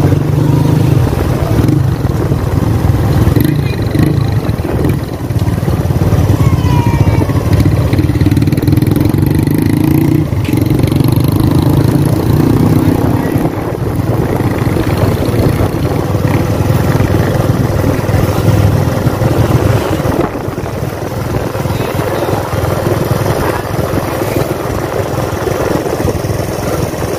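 A motor vehicle engine running steadily, a little quieter from about twenty seconds in.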